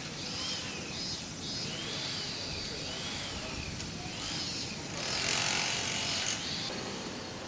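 Cicadas droning in summer, the buzz swelling for a second or so about five seconds in, with a series of short high calls that rise and fall in pitch, repeated about once a second.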